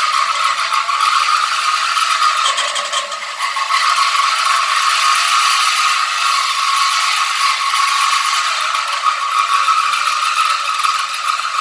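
A machine running steadily with a continuous mechanical rattling, briefly dipping about three seconds in.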